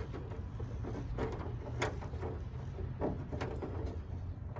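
Handling noise of a small rigid 3D-printed plastic part and rubber tubing being pushed and worked into place by hand: a few short, scattered clicks and rubs over a steady low rumble.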